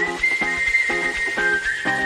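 Background pop music in an instrumental break: a high, held melody line that steps between a few pitches over rhythmic chords repeating about three times a second, with no singing.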